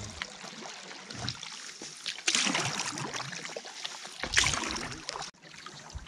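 Canoe paddle strokes: water swishing and trickling off the paddle blade, with two louder strokes about two seconds apart.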